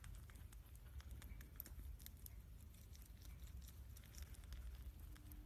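Faint, irregular patter of small clicks and rustles, as a small pet moves and nibbles in its bedding.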